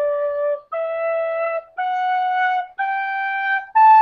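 Penny whistle playing the rising sargam scale, sa, re, ga, ma, into pa, one held note about every second, each a step higher than the last.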